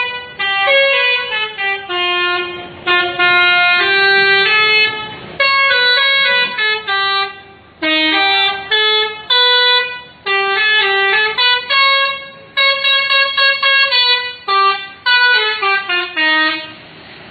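Indonesian 'telolet' multi-tone bus horn playing a tune: a quick run of loud, pitched horn notes stepping up and down in short phrases with brief gaps between them, stopping shortly before the end.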